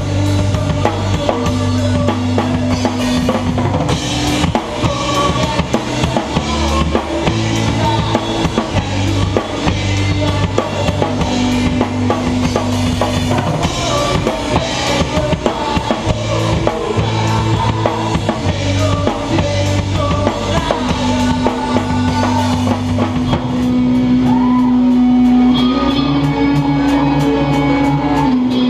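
Rock music played loud, driven by a drum kit with bass drum and snare over held low notes.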